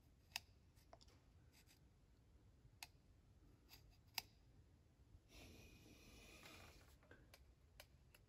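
Faint clicks of a steel knife blade tapping against a folding knife's handle scale, then about a second and a half of soft scraping, about five seconds in, as the blade is drawn across the scale.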